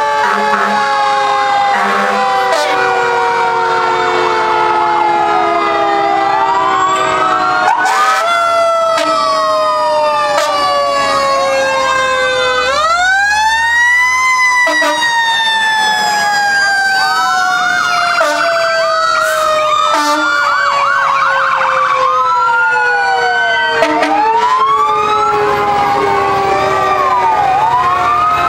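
Several fire truck sirens sounding together as the trucks pass. One siren winds up sharply about halfway through and then falls slowly in pitch, while others wail up and down, with a quick rapid warble about two-thirds of the way in.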